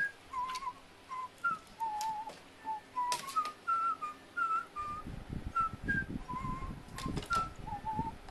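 A whistled tune of short notes moving up and down, with a few sharp clicks. About halfway through, a low rumble comes in underneath.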